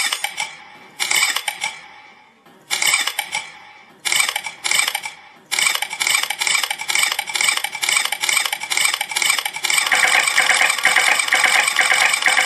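Bright metallic jingling, like coins or small bells ringing: a few separate strikes at first, then a quick even rhythm from about five seconds in, with a fluttering trill joining near the end.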